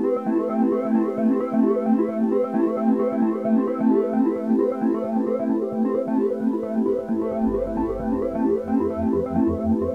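Background music on a synthesizer keyboard: a quick run of repeating notes, with a pulsing bass line joining near the end.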